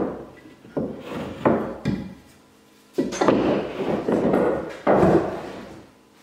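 Wooden table-frame parts being handled and fitted together on a workbench: a few sharp wood-on-wood knocks in the first two seconds, then a longer stretch of sliding and scraping of boards, with another knock about five seconds in.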